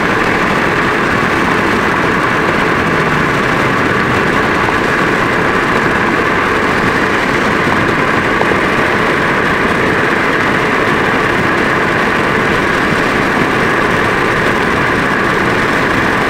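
Steady road noise of a car travelling at highway speed: tyres, engine and passing air blended into one even, loud rush.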